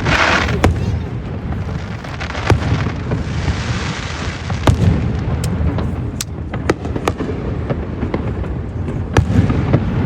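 Fireworks going off: a string of sharp bangs and pops at irregular intervals over a low rumble. There is a burst of crackling hiss right at the start and another a few seconds in.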